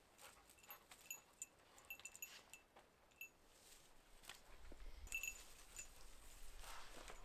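Faint metallic tinkling of a dog's collar jingling in short runs, with light clicks and rustles among the trees. A low wind rumble sets in about halfway through.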